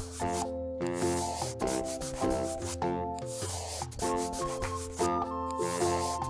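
Bright instrumental children's tune played as a melody of short notes, with a scratchy rubbing noise that comes and goes in half-second stretches over it.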